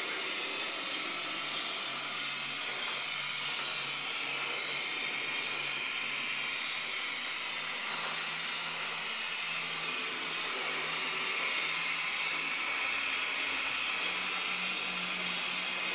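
HO-scale model of the CC 70002 diesel locomotive, a twin-motor model with a sound decoder, running along the track: a steady hiss with a low engine hum that steps up in pitch near the end.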